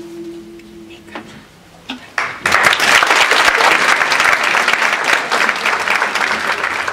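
The last held note of a small a cappella vocal ensemble dies away about a second in, then an audience breaks into applause about two seconds in, loud and sustained.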